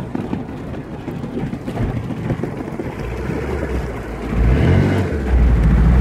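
Motorboat engine of a Polsport Kasia runabout running under way, with water and wind rushing past. About four seconds in, the engine note grows louder and its pitch wavers as the boat speeds up and turns.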